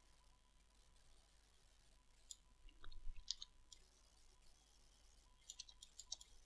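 Near silence with scattered faint clicks of a computer mouse and keyboard. One cluster comes about three seconds in, and another near the end.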